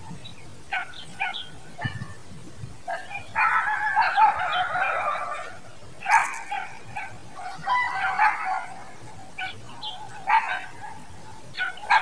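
Animal calls: short calls scattered throughout, with one longer pitched call lasting nearly two seconds about three and a half seconds in.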